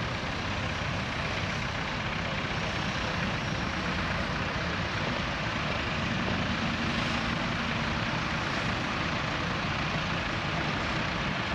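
Lorry engines running steadily as vintage trucks move around the show ring, with a faint held tone about halfway through.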